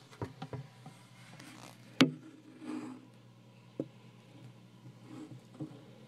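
Handling noise as a camera phone is pushed in among the plants and décor of a terrarium: soft rustles and light knocks, with one sharp click about two seconds in and a smaller one near four seconds.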